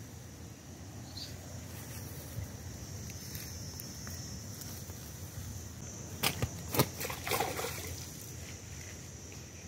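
A fish splashing into shallow pond water about six seconds in: a few quick splashes and sloshes over roughly a second and a half, over a steady low rumble.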